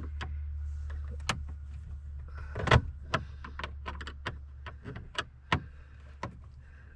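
A quick string of sharp clicks and light knocks from tools and the plastic steering-column trim being handled, the loudest a little under three seconds in, over a steady low hum.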